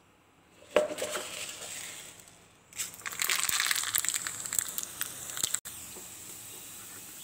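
Mustard seeds spluttering in hot oil in a pan: a knock and a short sizzle about a second in, then a loud, dense crackle of many quick pops from about three seconds in. This cuts off sharply to a steadier, quieter sizzle.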